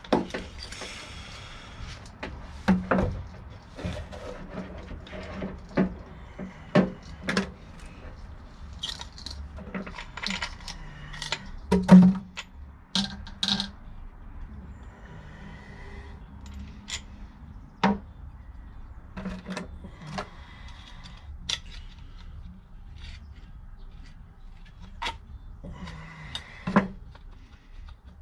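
Irregular knocks, taps and metallic clinks of hand tools and metal parts being handled during van body repair, a dozen or more sharp hits spread unevenly with the loudest about halfway through, over a steady low hum.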